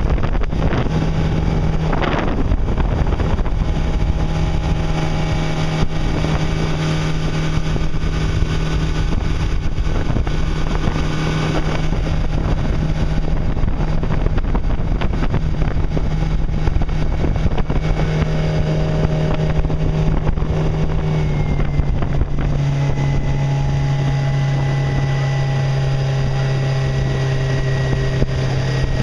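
Fishing boat's engine running steadily under way, a low drone over a rushing hiss. The drone drops a little in pitch about two-thirds of the way through, as the throttle eases back.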